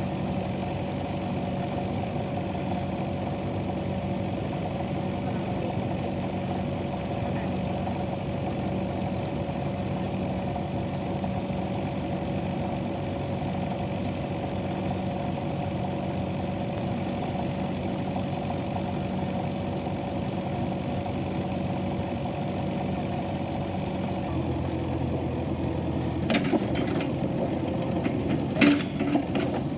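Kubota KX71-3 mini excavator's diesel engine running steadily at idle. Late on its note shifts, and a few sharp knocks follow near the end.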